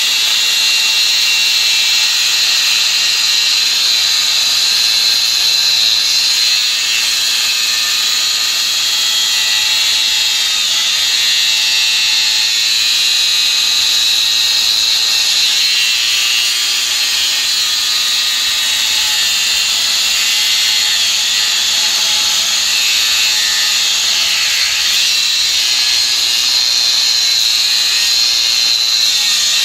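Cordless angle grinder cutting into a steel rail, a steady loud high-pitched grinding. In the second half the motor's pitch repeatedly sags and recovers as the disc is loaded in the cut.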